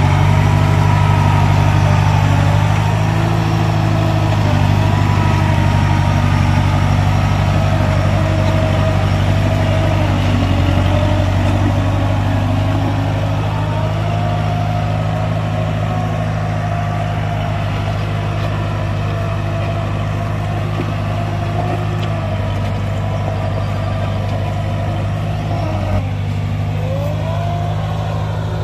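Kubota DC70 combine harvester's diesel engine running steadily, with a fainter higher whine that drifts up and down in pitch.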